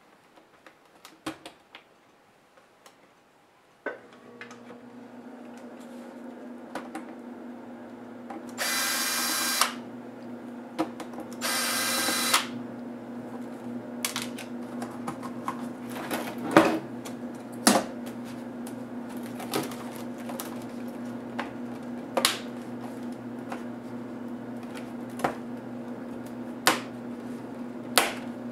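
Sharp plastic clicks and knocks from handling and prying a laptop's display assembly, over a steady low hum that starts a few seconds in. Two short whirring bursts, about a second each, come about nine and twelve seconds in.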